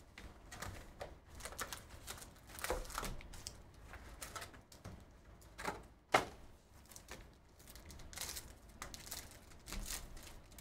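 Foil Panini Illusions football card packs being handled and one pack torn open: irregular rustles, crinkles and light taps on the table. There is one sharp knock about six seconds in.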